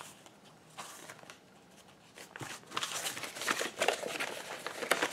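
Manila clasp envelope being opened and handled: a few faint ticks, then paper rustling and crinkling with sharp little ticks from about halfway in.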